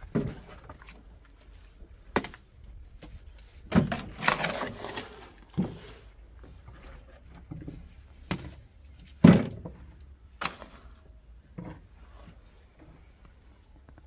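Wooden pole knocking and scraping against a log beam on a concrete pillar: a string of irregular thuds and knocks, the loudest a little after nine seconds, with a longer scraping rustle about four seconds in.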